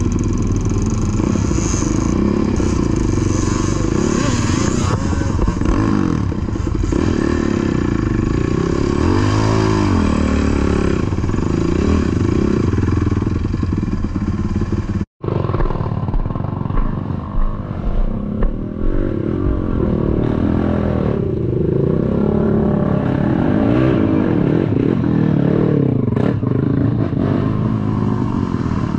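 ATV engine running and revving on the trail, its pitch rising and falling with the throttle. The sound drops out for a moment about halfway through.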